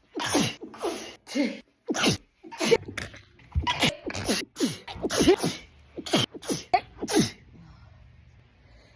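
A woman's sneezing fit: a dozen or more sneezes in quick succession, one after another about every half second, stopping about three-quarters of the way through.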